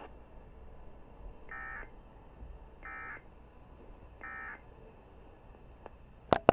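Emergency Alert System end-of-message tones: three short, identical bursts of digital SAME data, about a second and a half apart, that signal the end of the alert. Near the end comes a loud sharp click.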